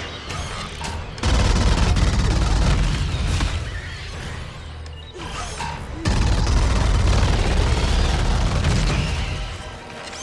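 Two long bursts of rapid automatic fire from a sci-fi pulse rifle in a film soundtrack, heavy and booming, laid over orchestral score. The first burst starts about a second in; the second starts about six seconds in and fades near the end.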